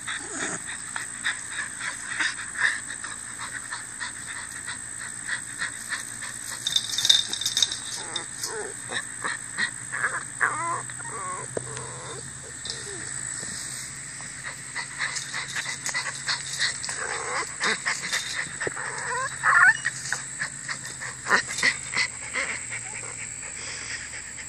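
Small dogs whining in short high, bending whimpers, about ten seconds in and again near twenty seconds, over frequent scratchy clicks and rustling as they jump and paw around.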